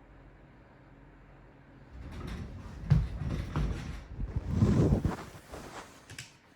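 A faint steady hum, then about two seconds in a few seconds of rustling and knocking close to the microphone, like things being handled or moved about. It dies away near the end.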